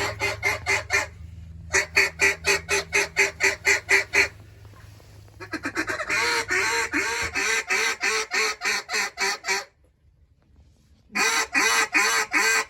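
A duck call blown in fast, even runs of quacking notes, about five a second, in four runs broken by short pauses. A low steady hum sits underneath and fades out about halfway through.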